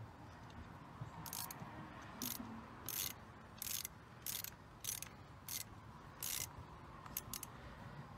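Ratcheting wrench clicking in short bursts on its return strokes, about eight of them, one every two-thirds of a second or so, while tightening the fuel rail bolts.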